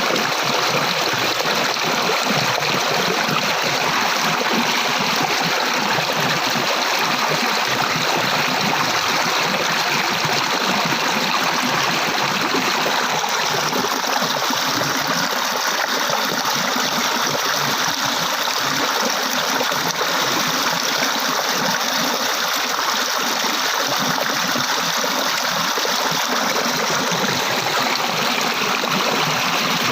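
Flowing water: a stream running over stones, a steady, even rush with some trickling and gurgling.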